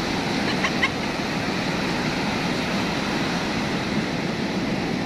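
Steady rushing noise of ocean surf breaking on a sandy beach, with a few brief high chirps just under a second in.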